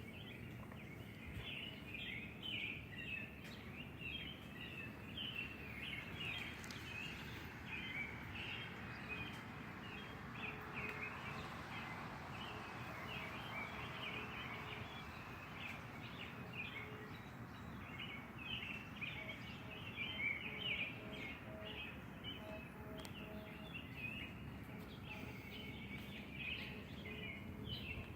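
Birds chirping continually in many short, quick calls over a steady low rush of outdoor wind noise.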